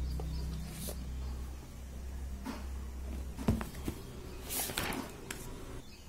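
Pen and paper notebook being handled: a few soft taps and clicks, then a brief papery rustle about four and a half seconds in, over a low steady hum that fades partway through.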